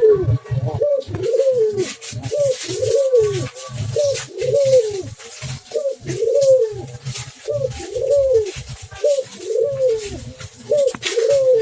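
Spotted dove cooing over and over, a steady run of low arched coos about one to two a second, shorter and longer notes alternating.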